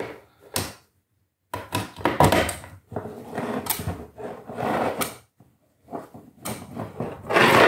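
Knocks and rustling from handling the charger's leads and plug on a wooden table, in two runs of a few seconds with a short pause between.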